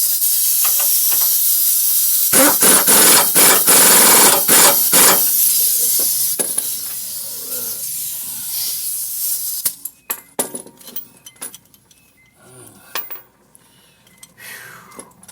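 Impact wrench tightening a rear sway bar link nut: a steady loud hiss with a stretch of rapid hammering rattle from about two to five seconds in. The hiss stops about nine seconds in, leaving light metallic clicks of hand tools on the link.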